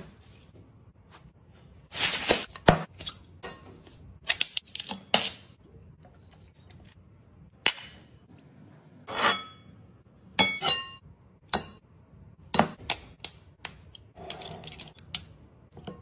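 Kitchen handling sounds: irregular sharp knocks, taps and clinks of a knife on a wooden board and small cups against a glass mixing bowl. A few of the clinks, about ten seconds in, ring briefly like glass.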